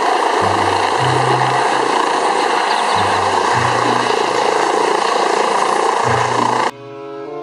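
Helicopter with a ducted fenestron tail rotor hovering close by, its turbines and rotors making a loud, steady roar. A stepping bass line of background music runs underneath. The helicopter sound cuts off suddenly near the end, leaving only the music.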